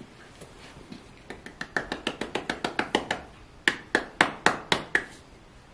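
A hand tapping and slapping the sole of a horse's lifted hind hoof: a quick run of about a dozen light taps, a brief pause, then six louder, slower slaps.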